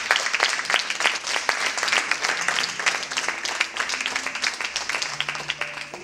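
Audience applauding: many people clapping at once, a dense, uneven patter that thins out near the end.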